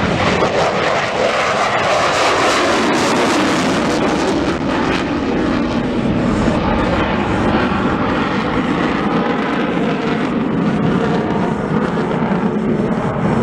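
Airplane engine noise from an aircraft flying past, loud and steady, with a drop in pitch in the first few seconds as it goes by.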